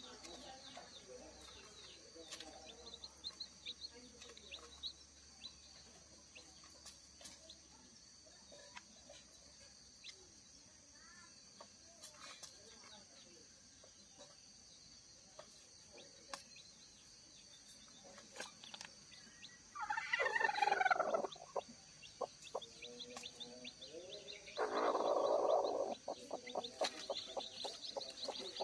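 A broody kampung hen gives two loud calls, each about a second long, the second harsher and rasping, over the faint high peeping of day-old chicks beneath her. The peeping grows busier near the end.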